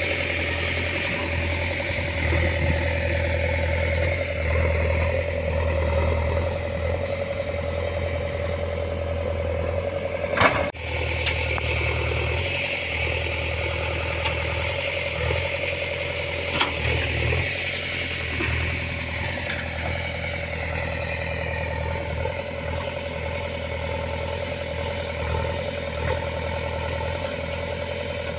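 An engine running steadily, with one sharp knock about ten seconds in.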